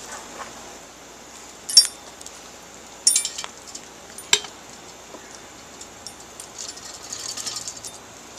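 Metal utensil clinking against a cooking pot while hamburger is browned: sharp clinks about two, three and four seconds in, the middle one a quick cluster, then a brief hiss near the end.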